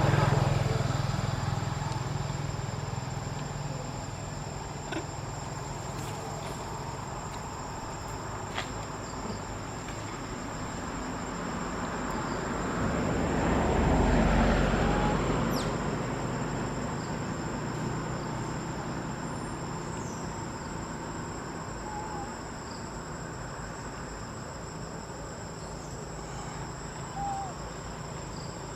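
Steady high-pitched insect drone. A motor vehicle passes, loud and fading at the start, then rising and falling again about halfway through; a few short chirps near the end.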